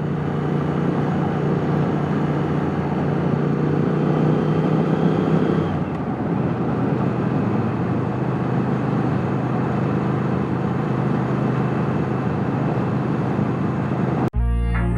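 Triumph Speed Twin's parallel-twin engine running steadily under way, its pitch rising slightly, with wind rushing over the helmet-mounted microphone. About six seconds in, the engine tone drops away and the wind rush carries on alone. Just before the end, music cuts in.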